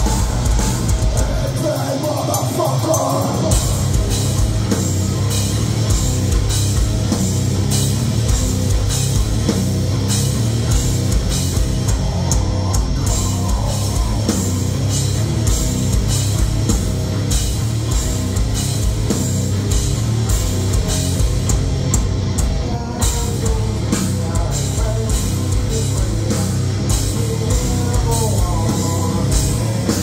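Heavy metal band playing live, loud and steady: distorted electric guitars, bass and a drum kit with dense, driving kick drum hits, with a brief drop about two-thirds of the way through.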